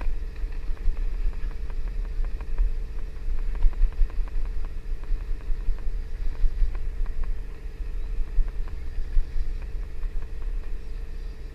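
Boat engine running with a steady low hum, over a low rumble, with scattered faint clicks throughout.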